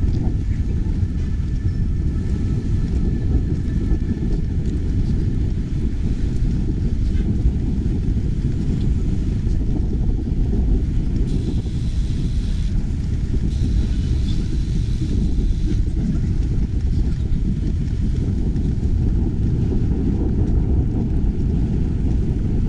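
Wind noise on the microphone of a chest-mounted GoPro on a moving bicycle: a steady low rumble. A higher hiss joins in twice, around the middle.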